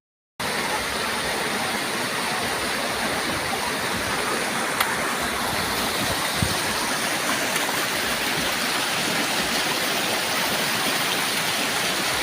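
Mountain river water rushing steadily, an even unbroken hiss that starts just after a brief gap at the start.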